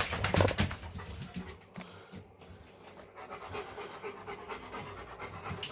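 A big dog panting rapidly, loudest for the first second and a half, then fainter.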